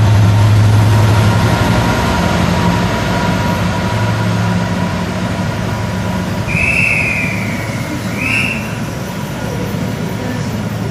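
Freightliner Class 66 diesel locomotive passing with its EMD two-stroke V12 engine running loudly, followed by the steady rolling of container wagons on the rails. The engine note fades as the wagons go by, and two short high squeals come about six and eight seconds in.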